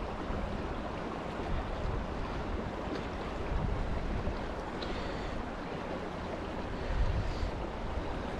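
The Big Thompson River running shallow over rocks, a steady rush of water, with low rumbles of wind on the microphone now and then, most around seven seconds in.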